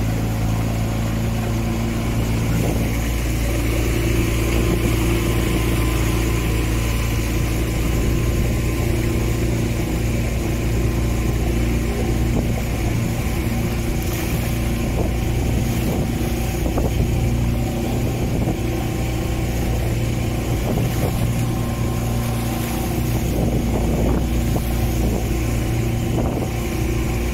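Outboard motor of a small inflatable boat running at a steady drone while under way at sea, with the rush of water and wind around the hull.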